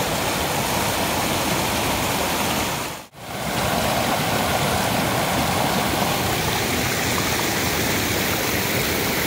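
Rushing water of a waterfall and its stream, a steady even rush that cuts out briefly about three seconds in.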